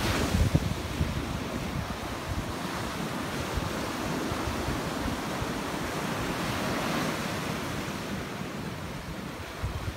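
Ocean surf breaking and washing over a rock jetty: a steady rushing hiss of water that swells about seven seconds in, with a heavier low rumble in the first half second.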